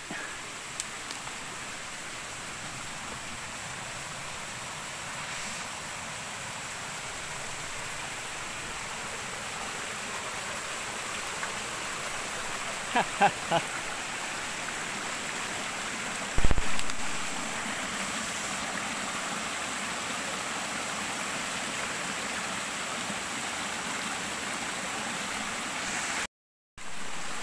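Small forest stream running steadily, growing slightly louder. A few seconds before the middle come three short high calls, then one sharp knock, and the sound cuts out briefly near the end.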